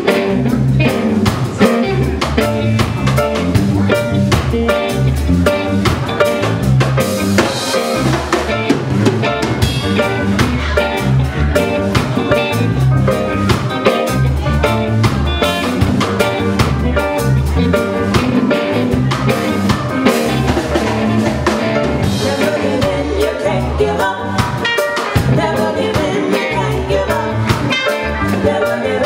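Live reggae band playing, with drum kit and bass line in a steady groove and instruments playing over them.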